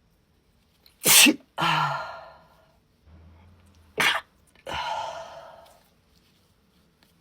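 A woman sneezing twice, about three seconds apart: each sneeze is a sharp, loud burst followed by a longer, fading breathy sound.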